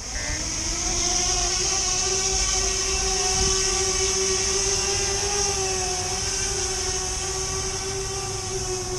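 Electric motors and propellers of a Fimi Manta tiltrotor model aircraft spinning up to lift off, then holding a steady pitched hum with a high hiss above it while it hovers. The pitch wavers a little as the motors correct for the wind.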